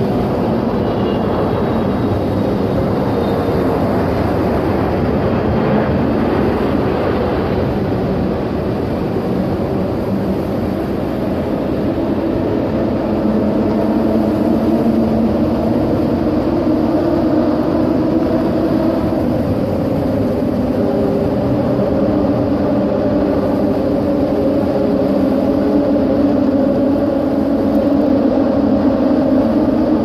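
Cars crossing the corrugated road decking of the steel-truss Ponte 25 de Abril, their tyres setting up a steady hum of several pitches that grows stronger about halfway through.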